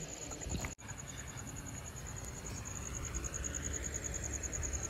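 Cricket chirping in a steady, high-pitched, rapidly pulsing trill over low background noise.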